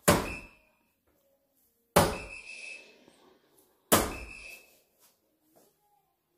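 Three soft-tip darts striking a Gran Board 3s electronic dartboard, about two seconds apart. Each hit is a sharp thud followed by a short electronic beep as the board registers it.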